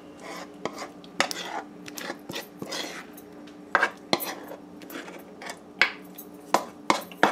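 A utensil scraping and clinking against a metal pot while thick, sticky coconut fudge is poured and scraped out into a baking tin, with irregular sharp clinks.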